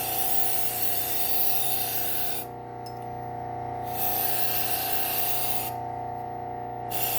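Bucktool low-speed belt sander running with a steady hum while a serrated knife edge is pressed to its spinning deburring wheel three times, each pass a rubbing hiss lasting one to two and a half seconds: the burr is being buffed off the serrations.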